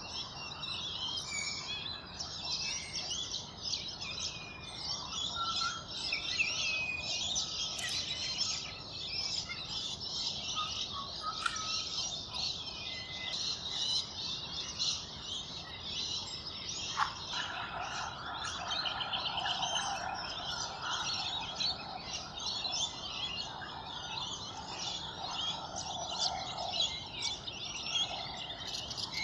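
A busy chorus of many birds chirping and twittering high and fast. From a little past halfway, a lower, more drawn-out calling joins in under the chirps.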